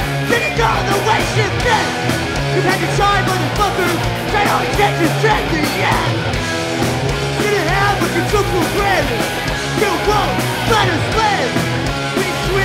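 Hardcore punk band playing live: distorted electric guitar, bass guitar and drums, with the vocalist yelling into the microphone.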